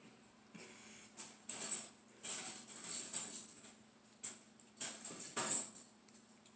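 Irregular bursts of high jingling and rustling, in several clusters over about five seconds, loudest near the end.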